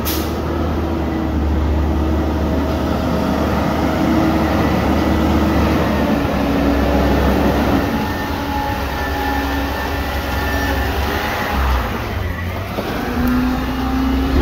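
Garbage truck engine running steadily, with a low, constant hum and a few held tones that shift slightly about thirteen seconds in.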